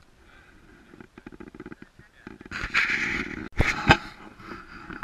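Crunching and scuffing in snow close to the camera, with two sharp, loud knocks a little past the middle.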